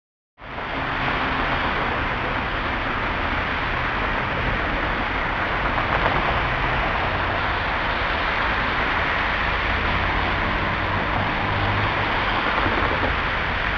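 Steady street traffic noise from passing cars, starting after a split-second dropout to silence at the very beginning.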